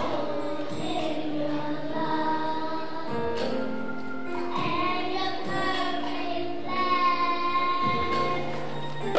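Children's choir singing, holding long sustained notes.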